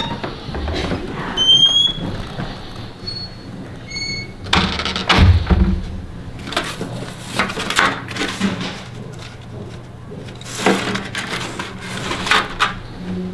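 A few short, high squeaks in the first four seconds, then paper rustling and light clicks as flyers are handled and pulled from a wall rack.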